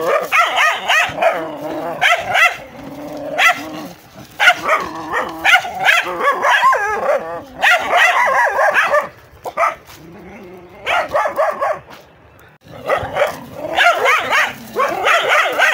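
Dogs fighting: rapid, overlapping barks, yelps and snarls, with a brief lull about two-thirds through before the barking picks up again.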